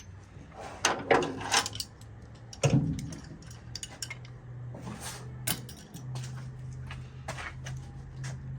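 Scattered metal clicks and clinks of hand tools and fasteners as parts are worked loose on a car's front end, with one heavier knock a few seconds in, over a steady low hum.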